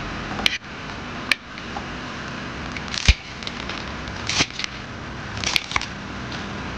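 Kitchen knife cutting through crisp fried tofu on a cutting board: a handful of separate sharp cuts and knocks against the board, the loudest about three seconds in.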